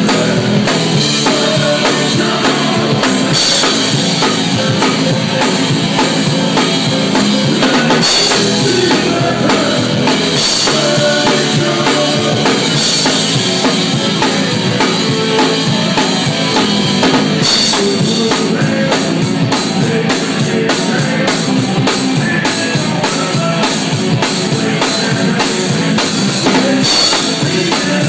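Drum kit played live: a continuous groove of kick drum, snare and cymbals, with sharp strikes throughout.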